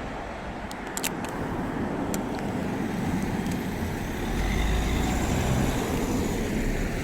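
Road traffic passing by, with one vehicle going past close and loudest, with a deep rumble, about four to five seconds in before fading. A few sharp clicks about a second in.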